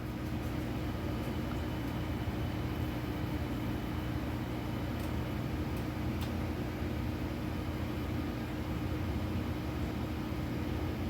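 Steady low mechanical hum over an even hiss, like a small motor or fan running, with a couple of faint ticks.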